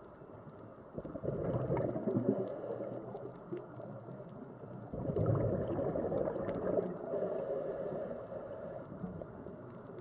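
Underwater recording of a scuba diver's exhaled bubbles from the regulator, two long gurgling bursts a few seconds apart, over faint underwater hiss and scattered clicking.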